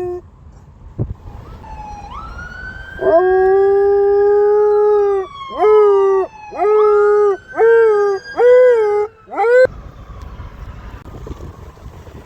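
Wolfdog (gray wolf, German Shepherd and Husky cross) howling: one long held howl starting about three seconds in, then five shorter howls that each dip and rise in pitch. A faint siren wails slowly up and down behind it.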